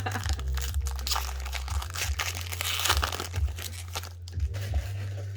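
Foil Pokémon booster-pack wrapper crinkling and tearing as it is handled and opened, a dense irregular crackle over a steady low hum.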